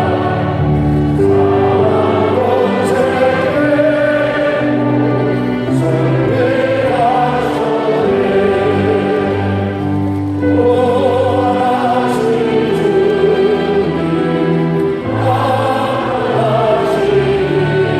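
Church congregation singing a hymn together, many voices on one melody over instrumental accompaniment that holds long, steady low notes.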